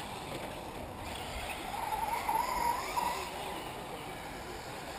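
Radio-controlled off-road model cars running on the track, with one car's motor whine rising and falling in pitch for about a second and a half near the middle.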